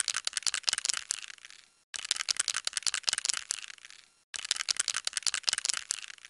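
An aerosol can being shaken, its metal mixing ball rattling rapidly against the inside of the can. The shaking comes in three bursts, with short breaks about two and four seconds in. Each burst starts loud and trails off as the shaking slows.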